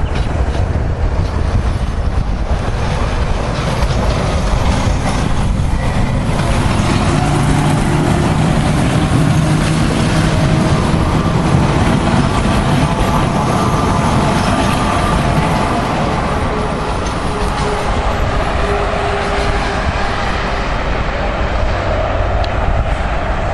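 A regional passenger multiple-unit train running past on the line and then away. Its steady running noise fades slightly in the later part.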